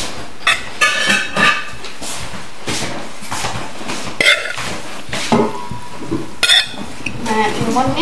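A metal serving spoon clinks and scrapes against ceramic plates as food is dished out: a series of short, sharp clinks, a few of them with a brief ring.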